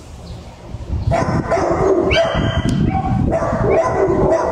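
Shelter dogs barking and yipping in the kennels, quieter for about the first second and then barking steadily.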